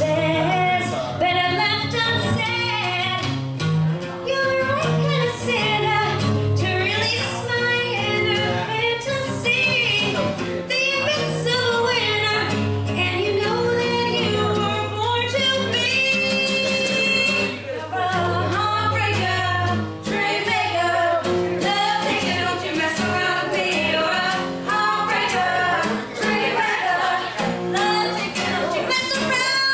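A live song: women singing over a strummed acoustic guitar, continuous and loud.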